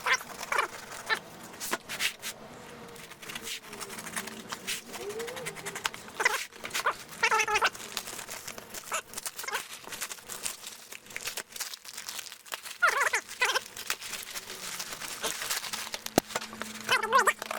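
A dog giving short pitched calls in pairs, four times, between stretches of crinkling and clicking from a package being opened.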